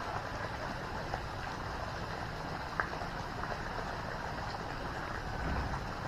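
Steady low rushing outdoor background noise with a few faint clicks; a low rumble swells briefly near the end.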